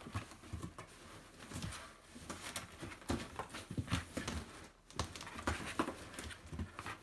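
A cat scrambling about inside a cardboard box: irregular light scratches, rustles and bumps against the cardboard.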